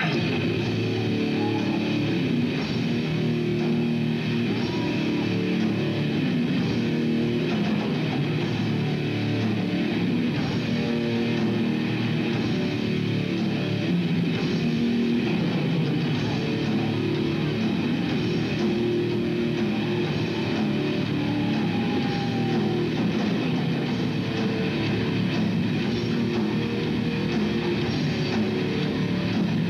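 Heavy metal band playing live: distorted electric guitars, bass guitar and drum kit, with a steady loud level throughout.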